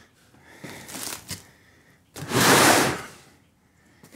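A cardboard box being shoved across a tabletop: a few light bumps and rustles, then about two seconds in one loud scrape lasting about a second.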